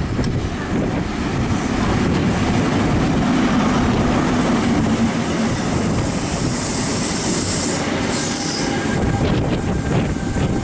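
An InterCity 125 high-speed train with Class 43 diesel power cars arriving at a platform. The power car engine drones under the rumble of the wheels on the rails, and a high squeal from the brakes or wheels comes in about six seconds in and lasts a couple of seconds.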